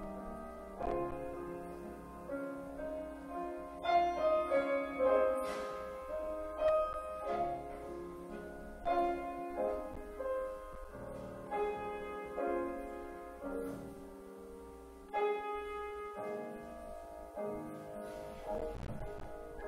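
Grand piano playing a slow piece, notes and chords struck one after another and left to ring.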